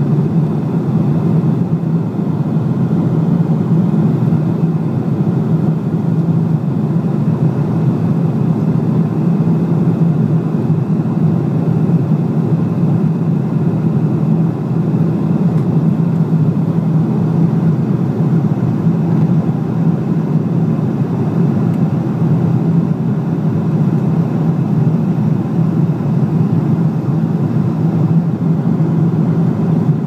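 Cabin noise of a passenger aircraft in flight: a steady, unbroken drone of engines and rushing air with a low hum.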